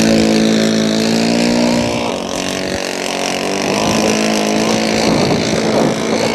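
Engine of a radio-control scale model airplane running at speed during a low flyby. Its note holds steady, then drops in pitch about two seconds in as the model passes.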